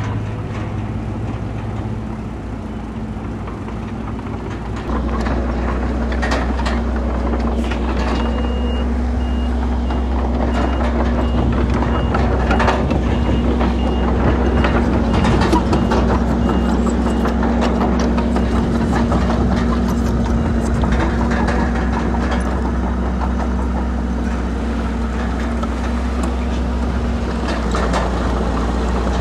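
Heavy earthmoving machinery, a bulldozer and dump trucks, with diesel engines running steadily and a deeper engine note coming in about five seconds in, over scattered clanks and knocks. A backup alarm beeps steadily from about eight seconds in for some twelve seconds.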